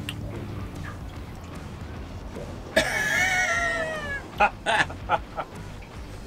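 A loud, high-pitched wailing cry nearly three seconds in, wavering and falling in pitch over about a second and a half, followed by four short, sharp bursts.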